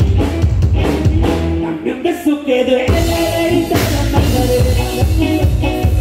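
Live norteño band playing a song with a singer and a steady beat; the bass drops out briefly about two seconds in and comes back a second later.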